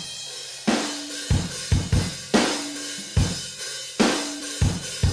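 Background music with a steady drum-kit beat: kick and snare strikes with cymbals over a deep bass note.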